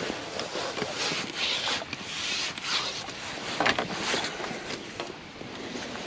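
Jacket fabric rustling and scraping against the camera in uneven bursts, with a few short knocks, as a landing net is drawn in by its handle and lifted out of the water.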